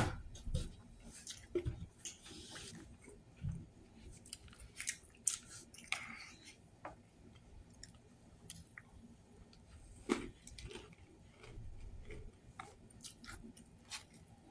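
Close-up chewing and mouth sounds of a person eating fried, breaded fish with his fingers, with irregular wet clicks and smacks. A sharp click right at the start is the loudest sound.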